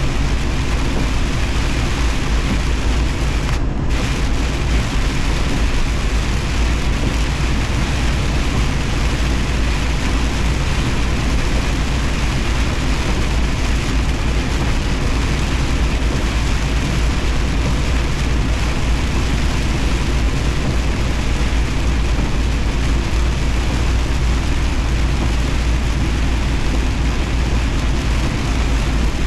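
Semi truck driving on a rain-soaked highway: a steady low engine drone under an even hiss of tyres on wet road and rain.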